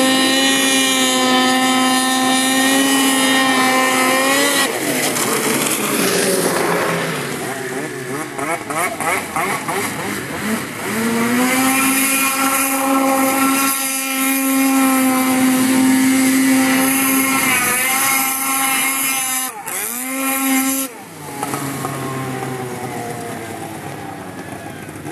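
Snowmobile engine held at high, steady revs. It fades off after about four seconds, climbs back to the same high pitch about eleven seconds in, holds there, then cuts back near the end.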